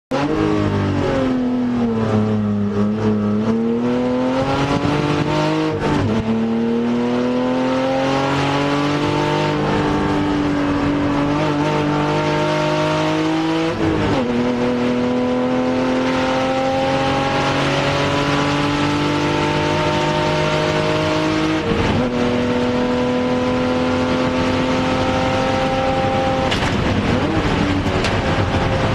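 Race car engine heard from inside the cockpit, pulling hard on track. Near the start its pitch falls as the car slows, then it climbs steadily through each gear, with a sharp drop at each upshift about 6, 14 and 22 seconds in. Near the end it dips briefly and wobbles.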